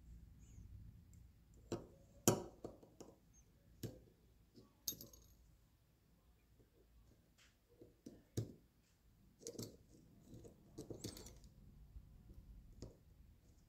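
Scattered light metallic clicks and taps from pliers and a screwdriver as a C-clip is worked into the bore of a Harley-Davidson Shovelhead front brake master cylinder to hold the piston down. The sharpest clicks come about two seconds in and about eight seconds in.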